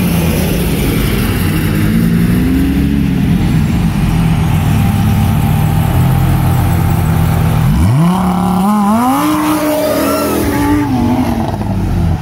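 Performance engines idling with a low, steady rumble. About 8 s in, one engine revs sharply up, holds high for about three seconds, then drops back toward idle.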